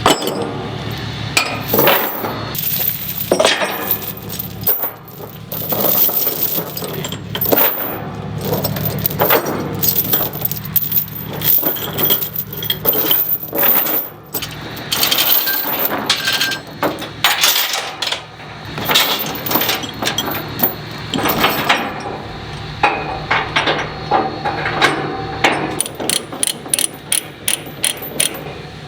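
Steel tie-down chains clinking and rattling, many irregular metallic clanks as the links are handled and hooked to tie a tractor down on a trailer.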